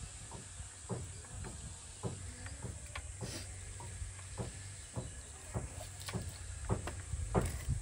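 Irregular light clicks and taps of wire and tools being handled as a pig carcass on a bamboo spit is wired shut for lechon, with a louder knock near the end over a low rumble.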